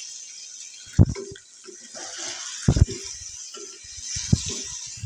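Wooden spatula stirring par-boiled potato pieces through a sizzling masala in a nonstick wok: scraping and small clicks against the pan, with three louder knocks, over a light sizzle.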